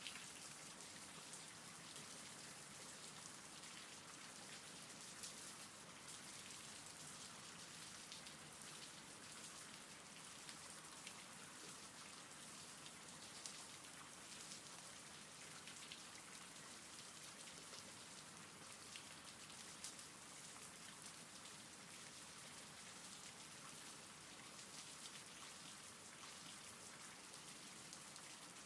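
Faint, steady rain: an even hiss with many small drop ticks.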